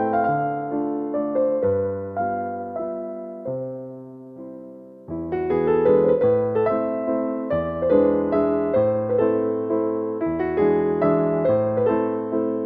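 Slow, gentle piano music playing note by note, thinning out and growing quieter a few seconds in, then picking up again with fuller chords about five seconds in.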